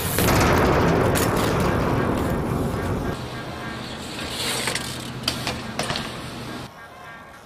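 BMX bike being ridden: a loud rough rush that fades over about three seconds, then a steady low rolling hum with several sharp clicks and knocks.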